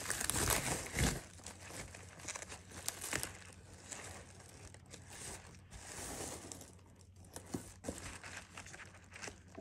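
Packing material crinkling and rustling as it is handled, loudest in the first second or so, with a few light clicks later on.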